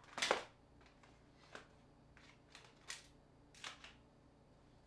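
Short, sharp clicks and taps of small hard phone parts being handled during disassembly: one louder click just after the start, then several lighter ones spread over the next few seconds.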